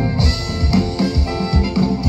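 A live band playing a jazz-fusion instrumental: drum kit keeping a steady beat under electric guitar, bass and keyboards, with a saxophone in the line-up.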